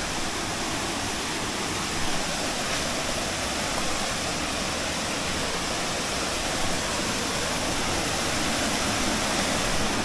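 Small waterfall on a rocky stream, water rushing and splashing steadily over boulders, growing a little louder near the end.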